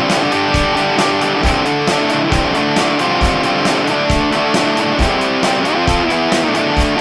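Background rock music with electric guitar chords over a steady drum beat.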